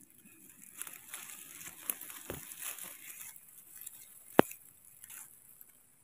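Dry grass and leaf litter rustling and crackling as it is pushed through, with one sharp click about four seconds in.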